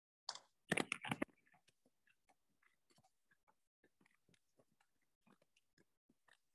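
Faint, irregular clicks and knocks on a firefighter's body-camera recording at a house fire: a cluster of sharper knocks about a second in, then scattered faint ticks and crackles.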